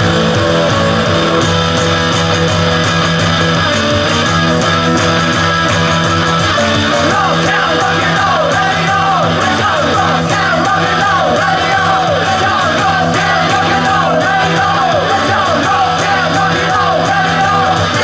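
Live rock band playing loudly: electric guitar, bass and drums with singers at the microphones. From about seven seconds in, wavering, bending high lines ride over the steady chords.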